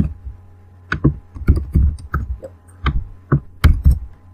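Laptop keyboard being typed on: about a dozen quick, irregular keystrokes, some with a dull thud, over a faint steady hum.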